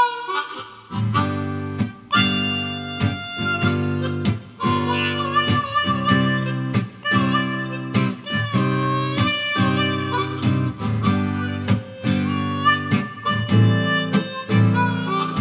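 Harmonica playing a solo instrumental break over a steadily strummed acoustic guitar.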